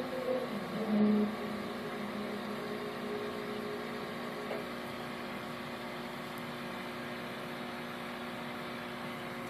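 Steady mechanical hum from running aquarium equipment, made of several steady tones, with a short louder low tone about a second in.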